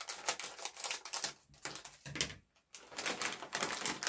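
Plastic snack bag of shrimp chips crinkling and crackling as it is cut open and handled, in two spells with a short pause in the middle.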